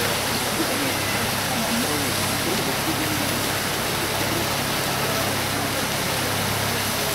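Fountains of Peterhof's Grand Cascade, including the Samson fountain's tall jet, rushing and splashing in a steady wash of falling water, with a faint murmur of crowd voices underneath.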